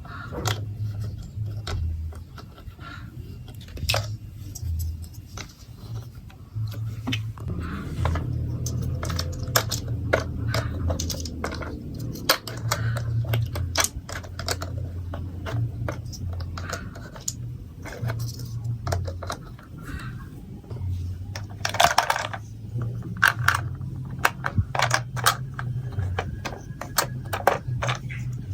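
Hard plastic marble-run building blocks and marbles clicking and clattering in many separate sharp clicks, with a longer rattle a little before the end, over a low hum.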